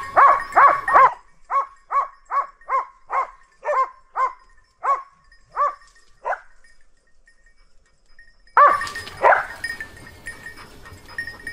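Hunting dog barking in a fast, steady series of about two to three barks a second. It falls silent for about two seconds past the middle, then barks loudly again.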